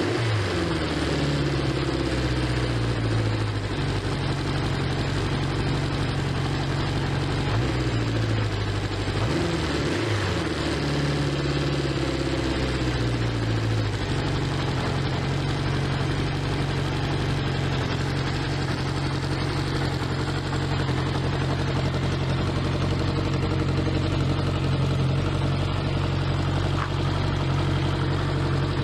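Honda CB500 Four's air-cooled inline-four engine idling. The revs are falling as it opens, rise and fall again once about ten seconds in, then settle into a steady idle.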